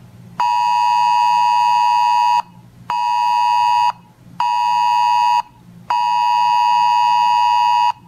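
Weather radio alert tone: a loud electronic beep near 1 kHz sounding in a pattern of a long beep, two short beeps and another long beep, with short gaps between, signalling an incoming weather alert.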